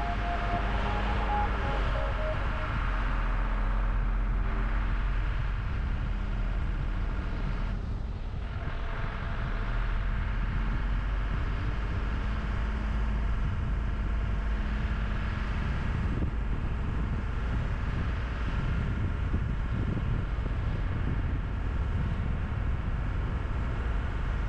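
Camper van driving slowly, its engine and tyre noise a steady low rumble. The tail of a piece of music fades out in the first couple of seconds.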